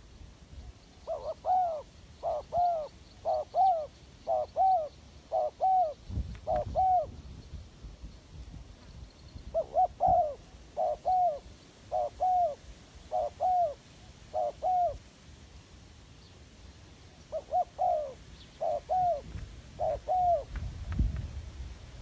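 Spotted dove cooing: three runs of repeated arching coos, each note rising and falling, about one and a half a second, with pauses of a few seconds between runs.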